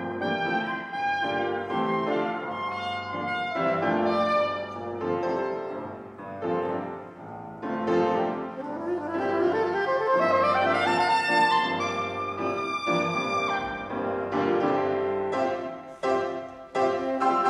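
Soprano saxophone and grand piano improvising jazz together, the saxophone carrying a melodic line over piano chords, climbing in a run about nine seconds in.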